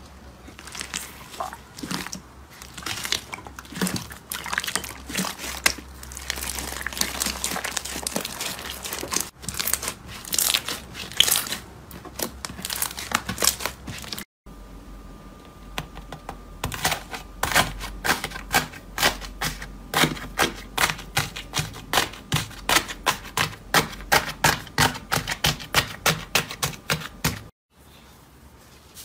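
Hands squishing slime: first dense crackling and popping as a fluffy blue slime is pressed over a clear slime ball, then, after a short break about halfway, a run of sharp crisp pops at about three a second as a teal slime is pressed flat under the palms.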